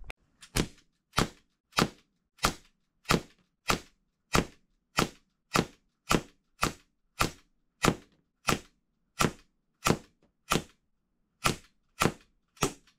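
Smith & Wesson M&P 40 non-blowback CO2 air pistol firing in steady semi-automatic succession: about twenty sharp cracks, a little under two a second, with one brief pause near the end.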